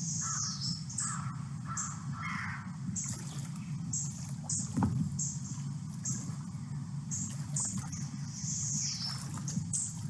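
Cypress swamp ambience: birds calling, with harsh caw-like calls in the first few seconds and short high chirps repeating throughout, over a steady low rumble. A single brief knock comes about halfway through.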